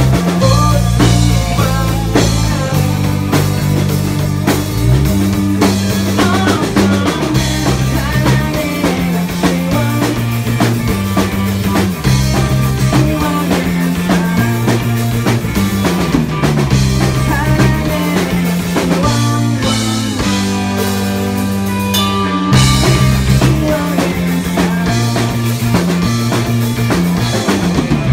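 A live rock band playing at full volume: electric bass holding steady low notes, electric guitars and a drum kit. Around twenty seconds in, the texture thins briefly before the full band comes back in.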